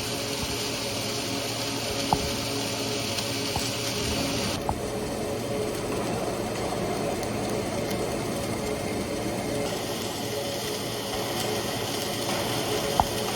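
Laser cladding machine running as it cladds a piston rod: a steady mechanical hum and hiss with a few sharp clicks. The hiss changes abruptly about four and a half and ten seconds in.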